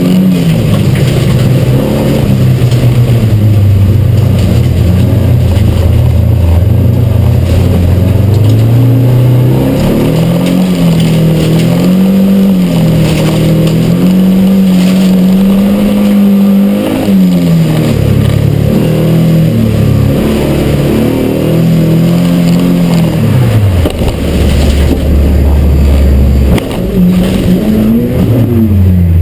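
Race car engine heard from inside the cabin, revving up and falling off again and again as the car is driven hard through the laps, with a lower, even stretch about three-quarters of the way in before it climbs once more.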